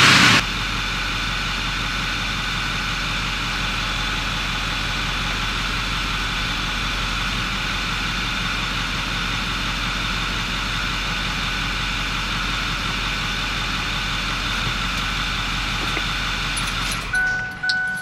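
Ford 6.4L Power Stroke V8 turbo-diesel dropping back from a raised speed to a steady idle about half a second in, then idling evenly; the power balance test has shown its cylinder 2 and 6 injectors slightly weak. About a second before the end the engine stops and an electronic beeping starts.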